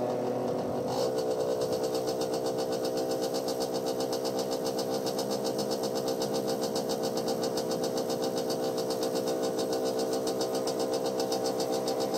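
A vehicle engine running steadily at a constant pitch, with a regular pulsing beat about four or five times a second.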